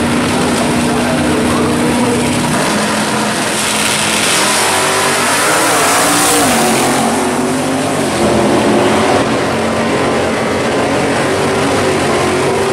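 Drag cars' engines held at high revs on the starting line, then launching and accelerating hard, loudest about six seconds in. Near the end another car's engine revs up.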